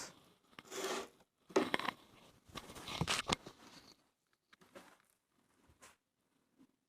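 Close-miked eating: a person eating fish curry and rice, with three noisy mouthfuls in the first few seconds and then only a few faint mouth clicks.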